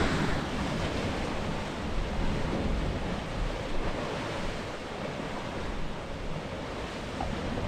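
Steady rush of surf and wind, with wind buffeting the microphone.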